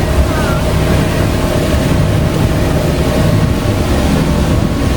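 Tour boat motor running steadily while underway, with wind and rushing water.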